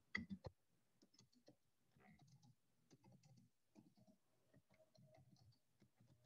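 Faint, quick keystrokes on a computer keyboard as text is typed, with a few louder clicks in the first half-second.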